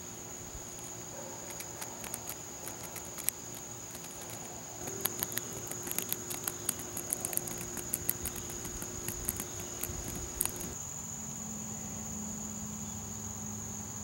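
A steady, thin, high-pitched insect trill in the background, over a faint low hum that drops in pitch about eleven seconds in. Scattered light clicks of handling come between about five and ten seconds in.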